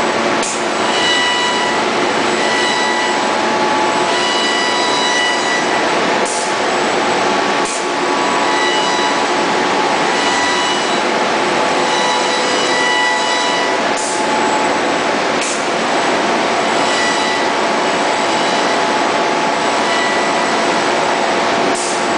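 Large CNC laser sail-cutting machine at work: a steady rushing noise, with a whining tone from its drive motors that comes and goes as the gantry and cutting head move, and several short high clicks.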